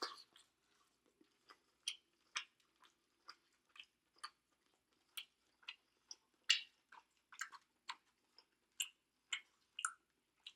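Close-up chewing of food: short, wet mouth clicks and smacks, about two a second at an uneven pace.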